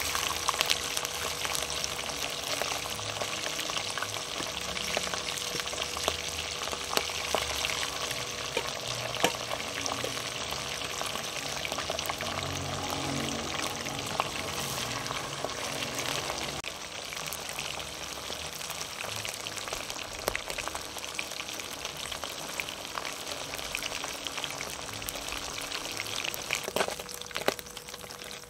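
Sprat fish frying in hot oil in an aluminium pot: a steady sizzle, with scattered sharp clicks of a fork against the pot as the fish are placed and turned.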